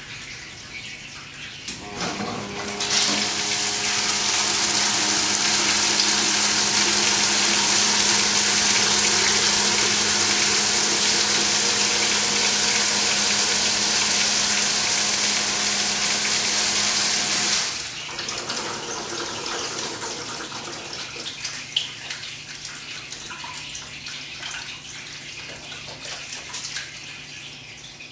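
Tormach PCNC 1100 flood coolant pump switched on about two seconds in: coolant gushes from three half-inch Loc-Line hoses into a bucket over a steady pump hum, then cuts off suddenly about sixteen seconds later. A quieter trickle and drips follow as the coolant drains.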